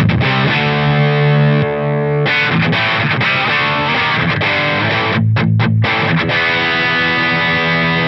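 Crews LED-1959 humbucker electric guitar played through a Fish Circuits Model One overdrive pedal into a Fender Deluxe Reverb amp and 12-inch cabinet: distorted chords and riffs, with a few short stops about five seconds in. The pedal's Body switch is on its smallest setting, which cuts the low end hard.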